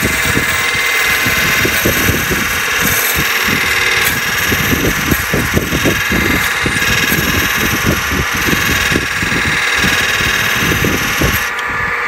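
Wood lathe running with a turning tool cutting a spinning purpleheart blank: a dense, scratchy shaving noise with an uneven crackle over the motor's steady run. The cutting stops near the end as the tool comes off, leaving the lathe running.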